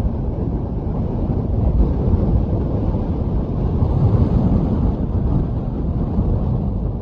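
Wind buffeting the microphone on an exposed summit: a loud, uneven low rumble.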